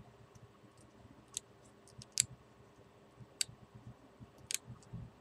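Knife whittling a hard wooden chopstick: sharp separate clicks as the blade bites and shavings snap off, four louder ones spread over a few seconds with fainter ones between.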